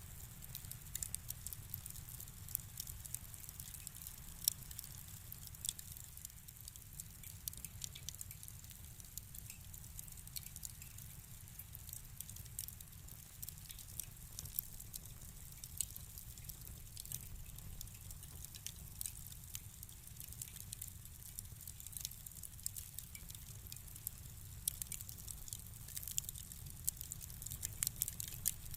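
Wood fire crackling in a fireplace: irregular small pops and snaps over a steady low rumble of the flames.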